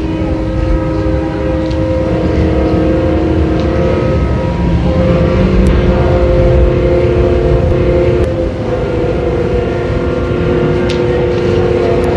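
Several horns sounding together in long, steady held blasts, typical of ships' horns at New Year, over a dense low rumble of fireworks. A few sharp firework pops cut through near the middle and end.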